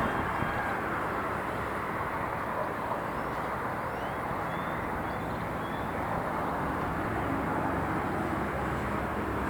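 City ambience: a steady wash of distant traffic noise, with a few faint short chirps about four to five seconds in.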